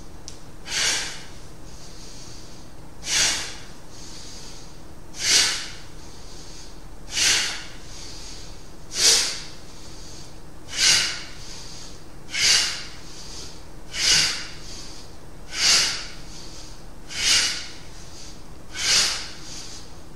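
A person breathing hard in a steady rhythm in a qigong breathing exercise: a sharp, forced exhale about every two seconds, coming slightly faster toward the end, with quieter inhales between.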